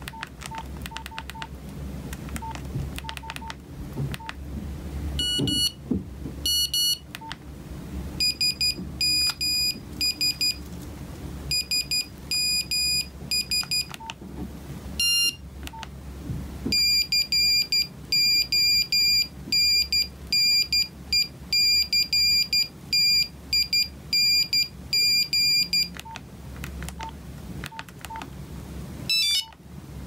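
Nokia 1260 mobile phone's short keypad beeps as its menus are scrolled, with previews of its built-in ringing and alert patterns in between. These are loud, high, buzzy electronic beeps, first in short groups and then in a long run of rapid beeps lasting about nine seconds, before the key beeps resume.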